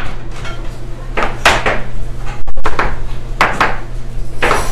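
Chef's knife chopping vegetables on a plastic cutting board: a handful of sharp knocks at an uneven pace, over a steady low hum.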